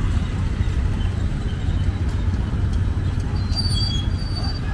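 Steady rumble of city street traffic, with motorbikes and tuk-tuks passing close by. A few thin, high-pitched tones come in during the last second or so.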